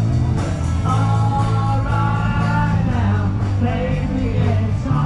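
Live band music: a singer holding long notes over a steady low bass line.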